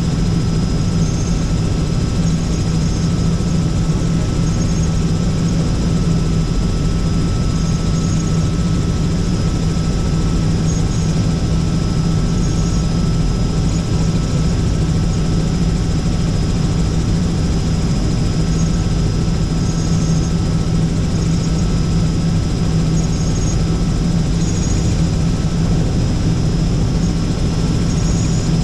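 Helicopter in flight heard from inside the cabin: a steady rotor and engine drone with a strong low hum and thin, steady whining tones above it.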